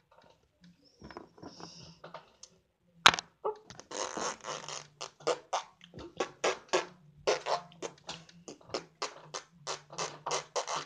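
A phone being handled close to its microphone: a sharp knock about three seconds in, then a rapid, irregular run of rough rubbing noise bursts, several a second.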